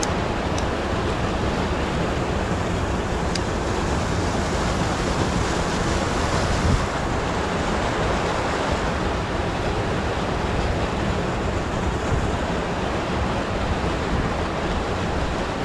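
Steady rushing noise, even throughout, that cuts off abruptly just before the end.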